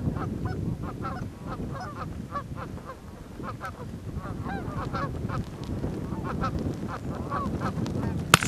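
Canada goose honks and clucks, short and rapid, two or three a second, over a low rumble of wind. One sharp shotgun report comes near the end.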